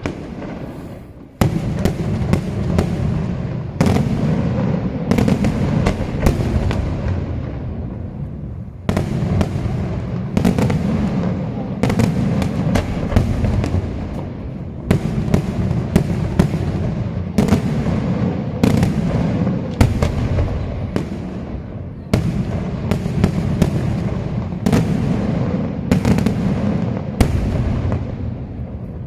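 Daytime aerial fireworks salvo: loud shell bursts going off several times a second, each bang followed by a rumbling echo. The bangs ease briefly about a second in and again around a third of the way through, then carry on densely.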